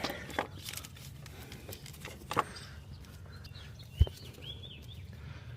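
Scattered clicks and knocks of hand tools and parts being handled under the car, the sharpest knock about four seconds in, followed by a few short bird chirps.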